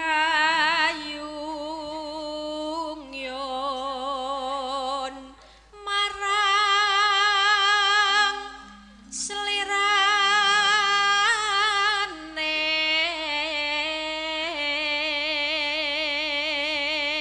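A pesinden, a female Javanese singer, singing long held notes with a wide, fast vibrato over low sustained accompanying notes. She sings three phrases, with short breaths about five and nine seconds in.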